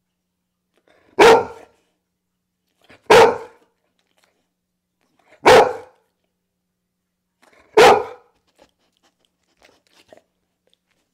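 A dog barking four times, single loud barks about two seconds apart.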